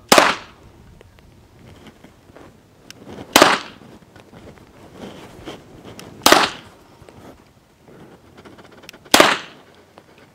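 HK P30L 9mm pistol firing four shots of 185-grain subsonic Seismic ammunition, slow aimed fire about three seconds apart, each report followed by a brief echo.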